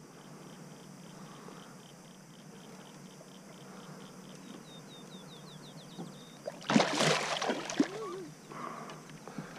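A fishing reel being wound with a faint, steady ticking. About seven seconds in, a big bass strikes the swimbait at the surface beside the kayak, a loud splash lasting about a second.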